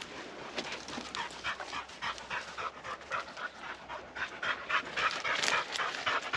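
A tracking dog panting quickly and rhythmically, about three to four breaths a second.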